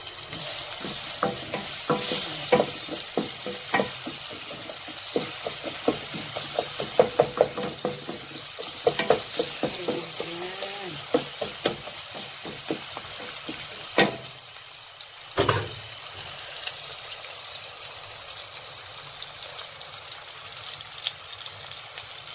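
Chopped onions frying in oil in a pot, a steady sizzle: the onion-and-oil sauté that starts the couscous broth. Many quick clicks and knocks, like a utensil stirring against the pot, run through the first half, with two louder sharp knocks a little past the middle, after which the sizzle goes on alone.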